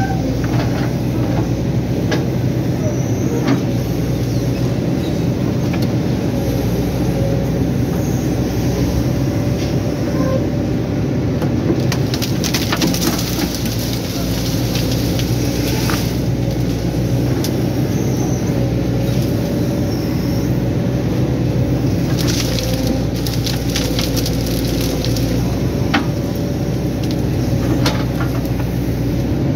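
Excavator's diesel engine running steadily under load while working. Over it come a few sharp cracks and crackles, mostly in the second half, as the bucket pushes down into a heap of dead branches and brush.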